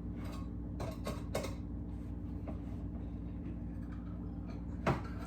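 A few scattered knocks and clicks from kitchen items being handled, the loudest near the end, over a steady low hum.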